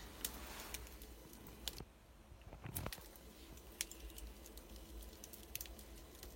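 Freshly lit birch kindling fire crackling, with faint, irregular pops and snaps.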